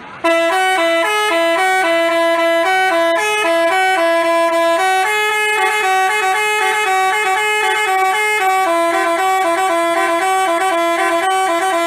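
Multi-tone 'telolet basuri' bus horn playing a quick melody of changing notes, starting abruptly just after the start.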